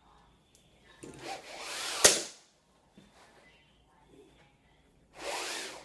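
Lift cord of a cellular shade pulled through its headrail, a rising zipping rush that ends in a sharp click about two seconds in. A second, shorter pull comes near the end.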